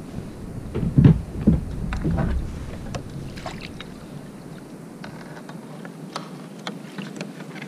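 Splashing and knocks against a plastic fishing kayak as a hooked lingcod is brought alongside and gaffed, loudest from about one to two and a half seconds in, followed by scattered small clicks and drips.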